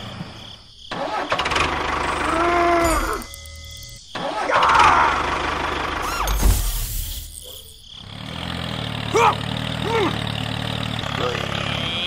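A tractor engine running, joined by short squeaky voice sounds that rise and fall in pitch.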